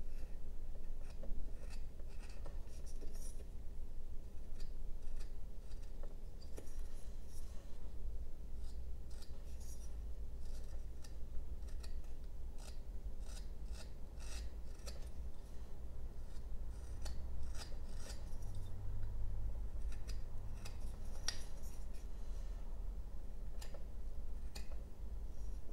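A small carving knife cutting chips from a basswood block: many short, irregular slicing strokes, each a crisp high scrape or snick.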